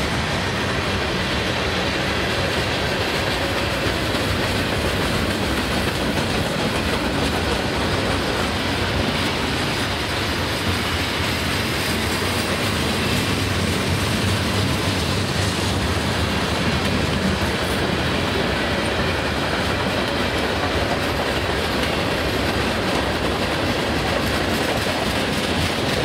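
Covered hopper cars of a freight train rolling past: the steady noise of steel wheels running on the rails.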